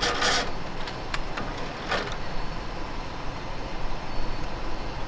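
A truck engine idling steadily, with a few short clicks as the boat trailer's bow winch is handled.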